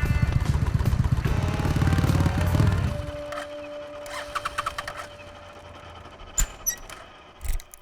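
Suzuki VS800 Intruder's 805 cc V-twin engine running with a steady beat of firing pulses, then shut off about three seconds in. A faint steady hum and a few sharp clicks follow.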